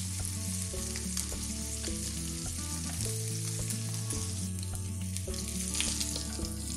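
Two thick pieces of beef striploin sizzling steadily as they sear in hot olive oil and butter in a ridged grill pan. Background music with low notes plays underneath.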